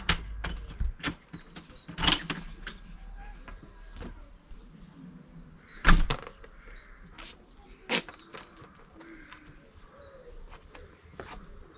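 Scattered sharp clicks and knocks of car parts being handled during the boot handle refit. The louder ones come near the start, about two seconds in, about six seconds in (the loudest) and about eight seconds in.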